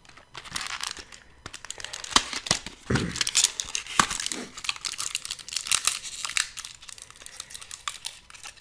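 Crinkling and tearing of packaging as a pack of e-cigarette cartridges is opened by hand, a steady run of irregular crackles and small clicks.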